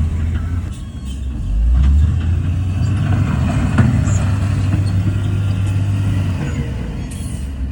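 Heavy diesel engine of earthmoving machinery running under load with a deep, steady rumble; it eases off about a second in and picks up again just before two seconds, with a few light knocks over it.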